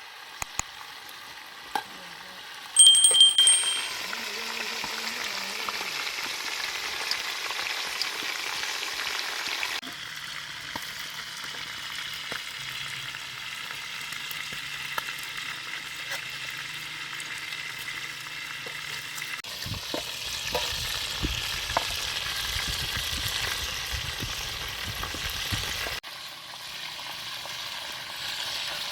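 Food frying in hot oil in a pan, a steady sizzle with occasional light clicks, broken by a brief, loud, high-pitched squeak about three seconds in.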